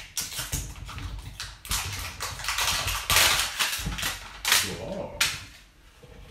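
Wrapping being pulled and peeled off a toy surprise ball: uneven bursts of rustling and crinkling, loudest about three seconds in, dying down near the end.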